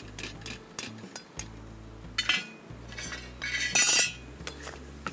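Stirring a thick urad dal and sugar halwa paste in a steel kadai: a utensil scraping the pan with quick metal clicks and clinks, and two louder scrapes, about two and four seconds in.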